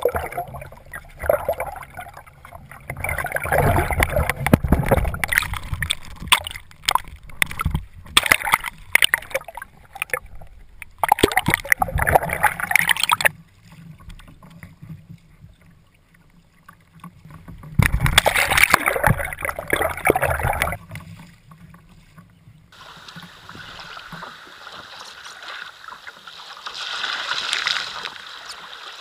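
Sea water splashing and gurgling around a kayak and its low-mounted camera in rough sea, in loud choppy bursts with a quieter gap around the middle. Near the end it gives way to a steadier hiss of wind and waves.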